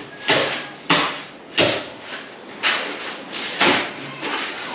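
Long-handled shovels and hoes scraping and dragging wet concrete across a floor being poured, a gritty stroke roughly every second.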